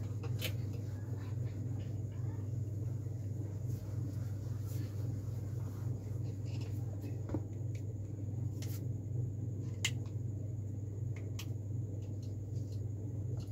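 A steady low electrical hum, like a fan, under the faint rubbing of a duster wiping a whiteboard and the tap and scratch of a marker, with a few light clicks scattered through.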